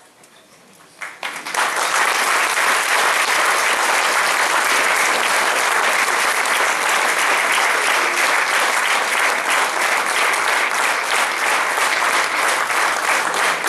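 Audience applauding, breaking out about a second in after a brief hush and going on steadily.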